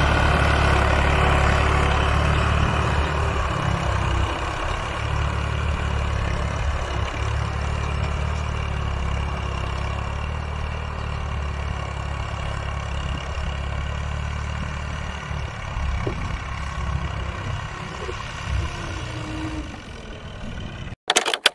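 Al-Ghazi tractor's diesel engine running under load while pulling a five-bottom plough, a steady hum that slowly fades as the tractor moves away. Near the end it cuts off suddenly and a short sharp hit follows.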